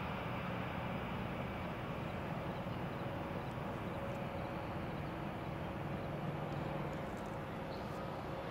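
GE diesel locomotive of a freight train running downgrade as it approaches and passes: a steady engine hum over the rumble of steel wheels on rail.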